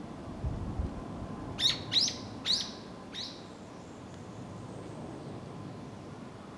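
Black woodpecker giving four short, high, sharp calls in quick succession about two seconds in, the last one weaker.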